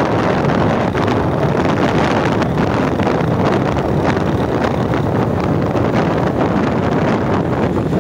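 Wind buffeting the microphone while riding in a moving vehicle, with the vehicle running steadily underneath.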